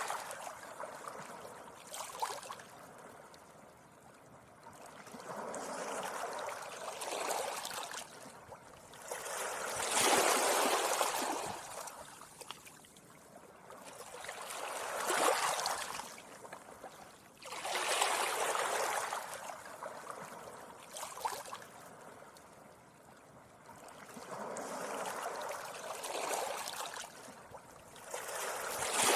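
Small sea waves washing gently onto a beach, each wash a hissing surge that swells and fades, one every four to five seconds.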